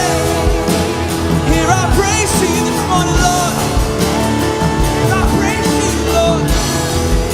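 A live worship band of drums, bass guitar, electric guitars and piano playing a steady up-tempo song, with a singer's voice running and bending over it.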